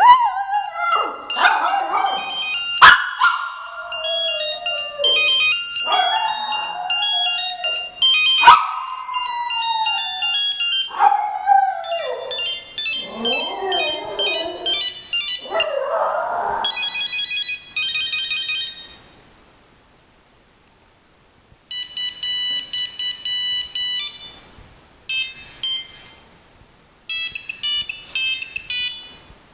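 Volpino Italiano dog howling and whining along to a mobile phone ringtone melody, its wails sliding down in pitch. The dog falls silent about halfway through, and two more ringtone melodies play on their own with pauses between them.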